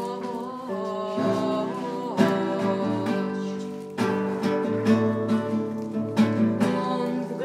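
Acoustic guitar accompaniment of a song, strummed between verses, with a held sung note trailing off over the first two seconds.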